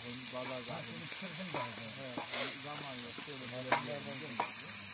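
Meat and vegetables sizzling in a large steel saç pan over a wood fire while a wooden spatula stirs them, scraping the pan and knocking on it with about four sharp clicks, the loudest late on. A low voice carries on in the background.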